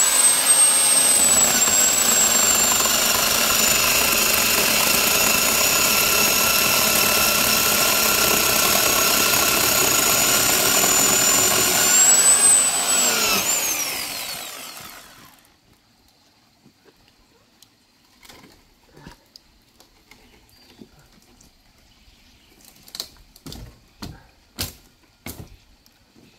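Corded electric chainsaw running with a steady high whine for about twelve seconds, rising briefly in pitch, then winding down to a stop at about fifteen seconds. Faint scattered knocks follow.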